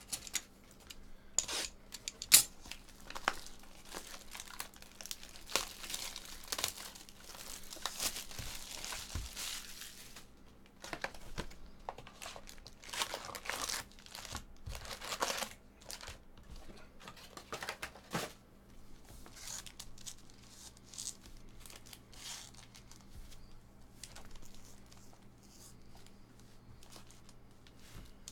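Plastic shrink-wrap torn off a trading-card hobby box and crumpled in the hand: a run of crinkling and tearing crackles, the sharpest about two seconds in. Foil card packs are then shuffled and handled.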